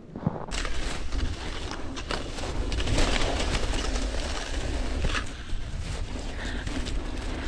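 Wind rumbling on the microphone, starting about half a second in, over a continuous rustle of movement outdoors in snow.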